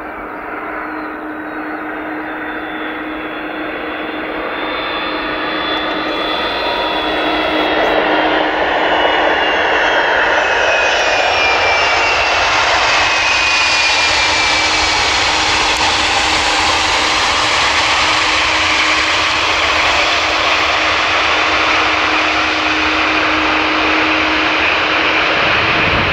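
Boeing 757 jet engines as the airliner passes, growing louder over the first several seconds and then holding a steady rush. A high whine falls slowly in pitch over a low steady hum.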